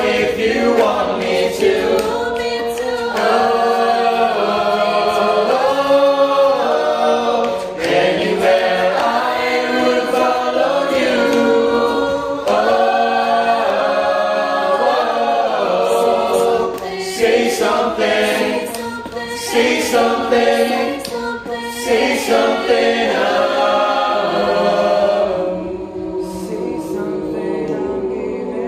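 A choir singing long, sustained notes that shift in pitch. Near the end the upper voices drop away, leaving a lower, steadier held tone.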